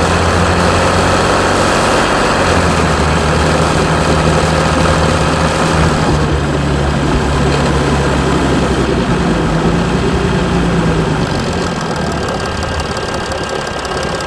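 Mercedes E320 CDI V6 diesel idling with diesel clatter. The uploader calls the idle rough after a cold start that followed a week of sitting. The sound eases a little near the end.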